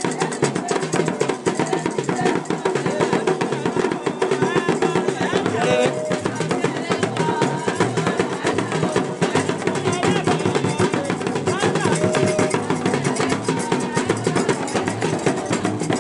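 Yoruba talking drums (hourglass dundun drums) played with curved sticks in a fast, dense rhythm, with voices singing along.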